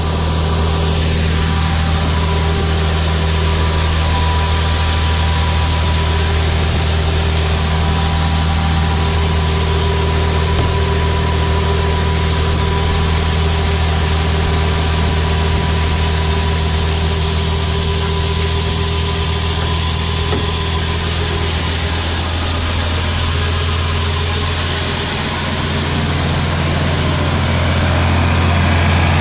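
A large farm engine running steadily at idle, an even low-pitched hum that grows slightly louder over the last few seconds.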